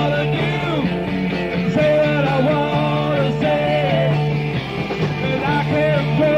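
Rock band playing live in an instrumental passage: a lead line bends between notes over a held bass note. The recording sounds dull and muffled, with little treble.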